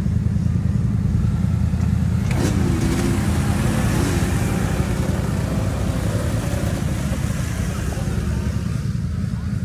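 Several ATV engines running together with a steady low rumble; about two and a half seconds in, one ATV close by revs up, its engine note rising and wavering for a couple of seconds.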